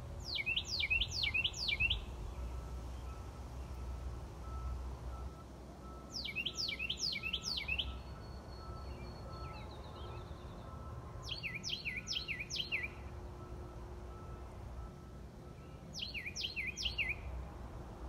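A songbird sings the same short phrase four times, a few seconds apart. Each phrase is a quick run of five or six clear notes, each sliding steeply down in pitch, and lasts under two seconds. A low steady rumble runs underneath.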